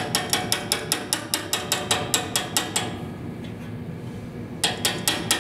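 Small hand ratchet clicking in quick, even strokes, about six clicks a second for some three seconds, then a shorter run of clicks near the end.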